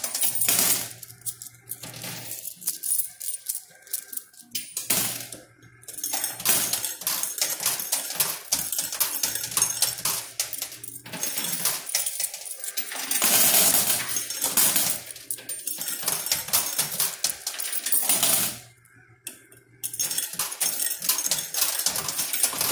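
Quarters clinking and clattering in a coin pusher machine as coins drop onto the sliding shelves and spill over the edges. It is a near-constant run of small metallic clicks, with a louder, denser jangle about 13 seconds in.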